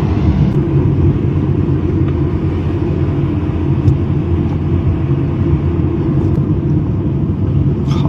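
Steady rumble of a moving car heard from inside the cabin: engine and road noise, with a few faint ticks.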